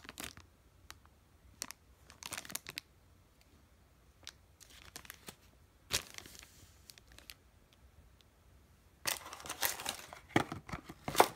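Clear plastic packaging bags crinkling and rustling as they are handled, in short scattered bursts with a few sharp clicks; the longest, loudest stretch of crinkling comes near the end.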